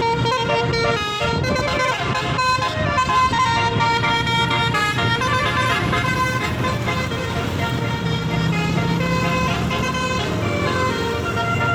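A tour bus's roof-mounted basuri musical horn playing a melody, one held note after another, over the low hum of the bus.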